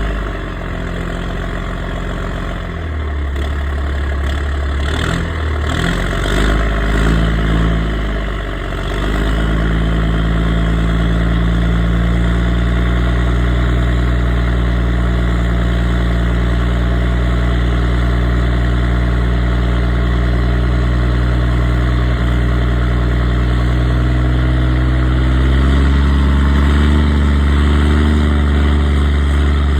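Ford Cargo 1722 truck's turbodiesel engine running through a straight-pipe exhaust. It is revved a few times in the first several seconds, then idles steadily, and the engine speed rises slightly near the end.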